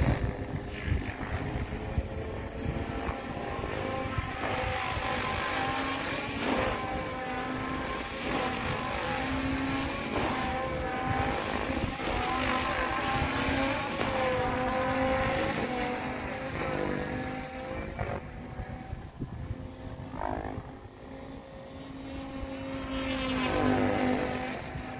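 Electric SAB Goblin RC helicopter in flight: a steady whine of motor and rotor blades whose pitch drifts up and down, with swooping changes in pitch as it passes about two thirds of the way through and again near the end.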